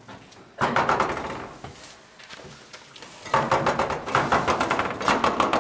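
Rattling and clattering of loose metal objects being handled. It starts suddenly about half a second in and fades, then comes back from about three seconds in as a quick run of clicks and rattles.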